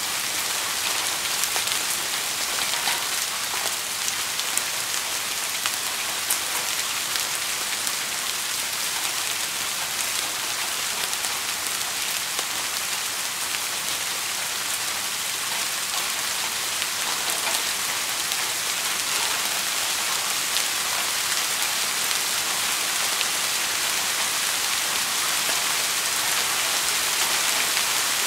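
Steady rain falling on a surface: a dense, even hiss with scattered sharp ticks of individual drops.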